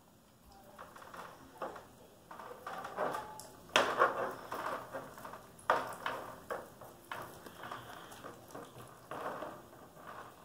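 German Shepherd puppy gnawing and licking a ham bone on the crate floor: irregular knocks and clatters as the bone is pushed and scraped against the floor tray, the loudest about four seconds in and again near six seconds.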